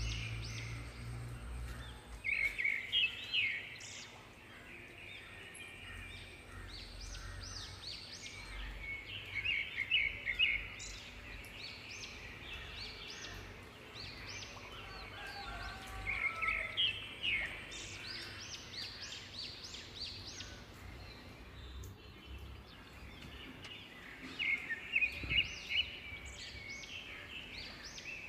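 Birds calling outside in bouts of rapid, repeated high-pitched notes, about four bursts of chatter a few seconds apart, over faint background noise.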